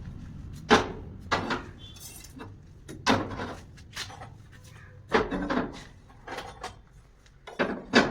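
Irregular metal clanks and knocks from masonry work on a concrete slab's formwork and rebar, about eight sharp strikes spaced unevenly over several seconds, each ringing briefly.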